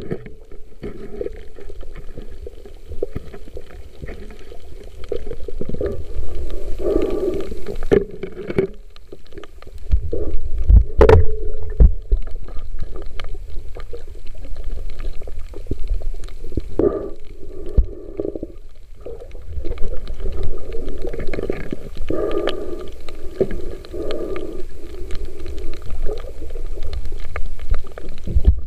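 Muffled underwater rumbling and gurgling picked up by a submerged camera, with scattered clicks and knocks, one sharp knock about eleven seconds in.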